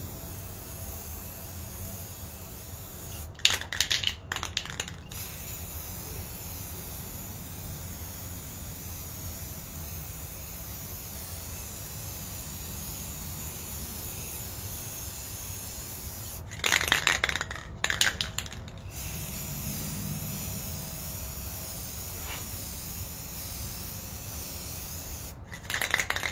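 Aerosol spray-paint can used in three short bursts of one to two seconds each: a few seconds in, about halfway, and at the very end. A low steady background noise runs underneath.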